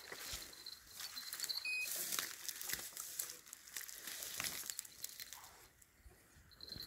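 Close rustling and scraping with scattered light clicks and knocks, the noise of clothing and gear being handled right by the microphone.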